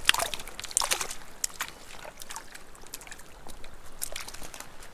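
Light, irregular water splashing and trickling: a string of small sharp splashes over a faint steady wash.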